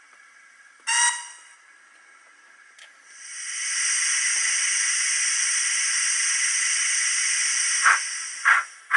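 Sound-fitted Bachmann NG7 Quarry Hunslet model steam locomotive's recorded effects through its small onboard speaker: a short whistle toot about a second in, then a loud steady steam hiss from about three seconds. Near the end the first exhaust chuffs begin, coming quicker as the loco starts away.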